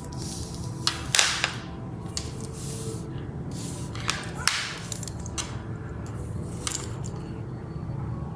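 Short bursts of rustling and light handling noise, a few times, over a steady low hum.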